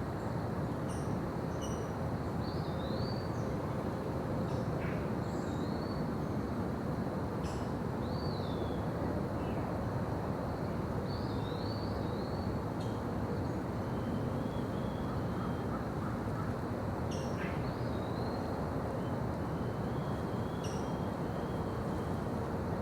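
Daytime forest ambience: birds call every second or two with short chirps and rising-and-falling whistled notes, over a steady low rushing background.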